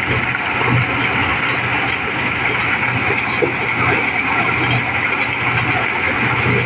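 Diesel-driven mobile corn sheller running under load, a steady, unbroken drone of engine and threshing drum as corn is fed in and shelled.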